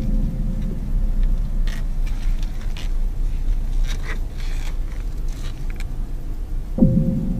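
Steady low rumble of a car driving slowly, heard from inside the cabin, with faint scattered clicks. Near the end a single deep thump with a short hum rises above it.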